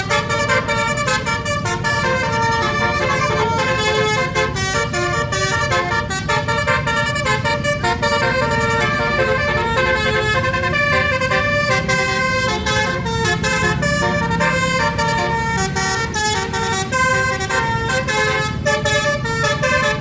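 Basuri 'telolet' multi-tone bus horn with twelve roof-mounted trumpets playing a rapid melody of stepping notes, over a steady low rumble.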